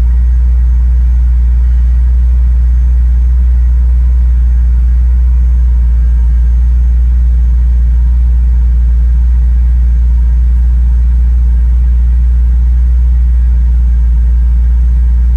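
1996 Chevrolet Corvette's 5.7-litre LT4 V8 idling steadily at its cold-start fast idle, about 1,100 rpm, heard from inside the cabin. A deep, even rumble with no change in speed.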